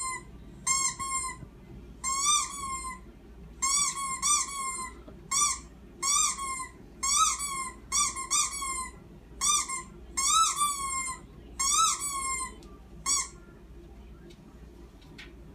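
A squeaky-toy squeak sound effect played again and again, in single and double squeaks, each a short rise and fall in pitch. It stops shortly before the end.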